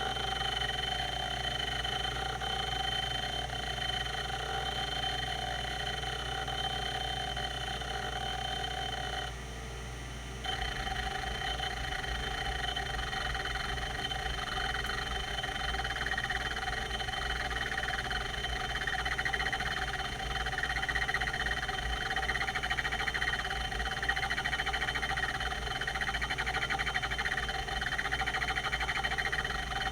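Quantum Q540 30 MB full-height MFM hard drive running with a steady whine. It drops out briefly about a third of the way in, then makes repeated swelling squeaks about once a second, the squeaking this drive is known for during operation.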